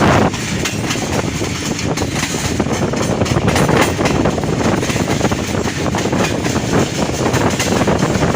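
Passenger train running on the track, a loud steady rumble of wheels on rails broken by many sharp clicks and clatters.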